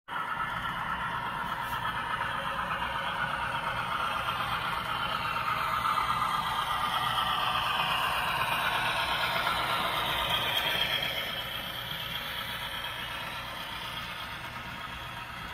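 Model train running past: the model Dash-9 diesel locomotive and its double-stack container cars rolling along the track with a steady mechanical whir and rattle. It grows louder as the locomotive passes about halfway through, then fades as the cars roll by.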